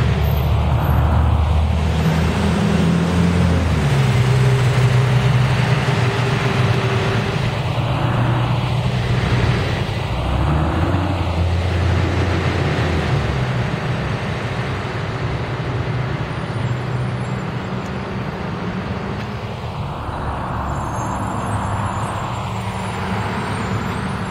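Diesel city transit bus engine running as the bus drives off, its low drone changing pitch a few times and slowly fading, with car traffic passing.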